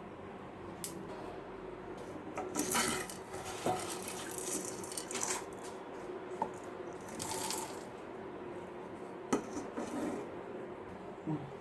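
Peppercorns and cumin seeds being dry-roasted and stirred in a kadai: a spoon scraping across the pan in short strokes, the seeds rattling, with a few sharp clicks of the spoon against the pan.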